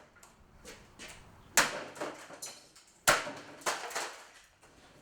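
Blows striking a broken plastic box fan: two loud, sharp hits about a second and a half apart, with lighter knocks and rattles of plastic between them.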